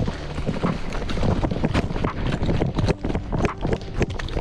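A person running on foot, with irregular thudding footfalls several times a second and wind rumbling on the microphone.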